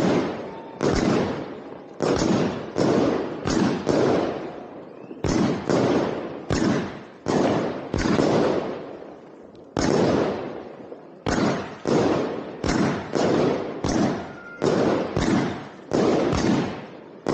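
Consumer firework cake firing shot after shot, about two sharp bangs a second, each trailing off in a short hissing fade, with a brief lull around the middle. It is very close to the microphone.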